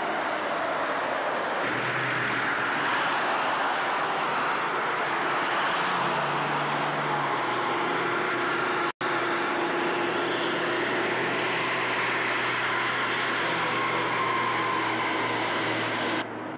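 Heavy machinery running steadily, an engine-like drone with a few faint steady tones. The sound cuts out for an instant about halfway through and drops away near the end.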